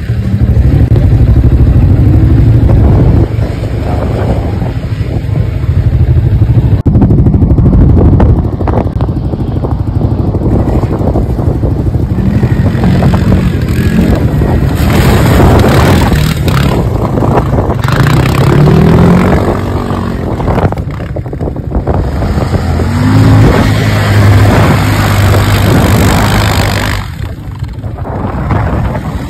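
ATV (quad bike) engine running under load off-road, revving up and down several times as the throttle is worked.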